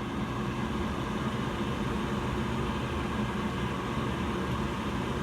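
Evcon 80% gas furnace's draft inducer motor coming up to speed and running with a steady hum. This is the first stage of the furnace's start-up, before the igniter and burners.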